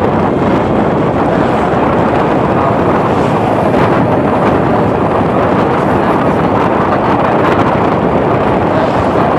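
Steady rush of wind buffeting the microphone of a moving motorbike, with the bike's engine and road noise blended underneath.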